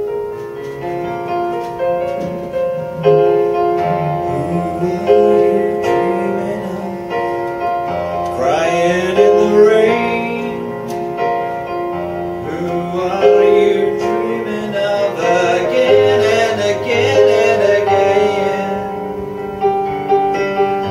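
Yamaha CP4 stage piano playing a slow accompaniment of held notes and chords. A man's voice sings along with it in wavering, wordless lines about eight seconds in and again through the middle of the passage.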